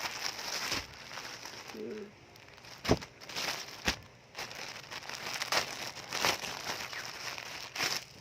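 Packaging crinkling and rustling in repeated bursts as a shirt is unwrapped, with two sharp clicks about a second apart near the middle, the first the loudest.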